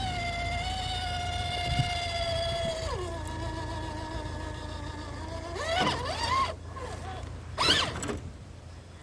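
Electric motor and drivetrain of a Traxxas TRX4 RC crawler whining as it drives. The pitch holds steady, drops as the truck slows about three seconds in, then rises in two short surges of throttle near the end.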